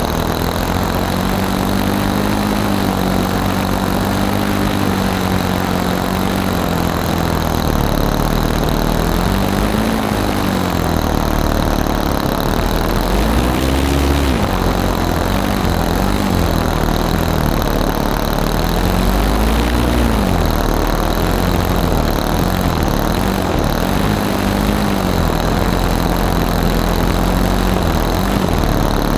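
120-size nitro glow engine of an RC model airplane running at low throttle, heard up close on board with its propeller spinning. Its pitch holds steady but rises and falls briefly several times in the middle, short bursts of throttle.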